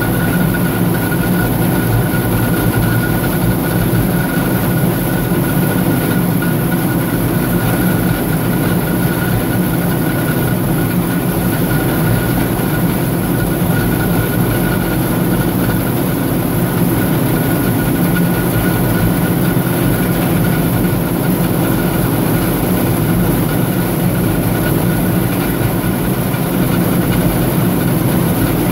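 Forage wagon unloading chopped corn silage into a New Holland forage blower: the PTO-driven machinery runs steadily under load, with a steady high whine over the noise.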